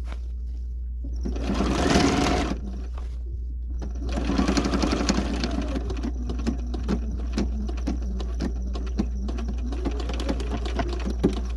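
Bernina 130 sewing machine stitching a denim jeans hem. It runs in a short burst about a second in, then runs steadily from about four seconds in, with separate clicks of the needle strokes.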